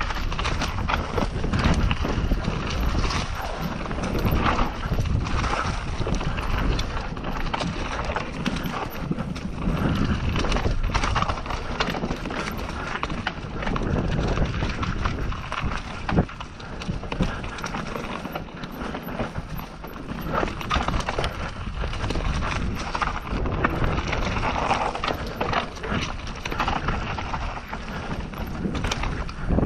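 Mountain bike descending a dirt singletrack, heard from a camera mounted on the bike or rider: tyres rolling over dirt and roots, with the bike rattling and clattering throughout and one sharper knock about halfway through.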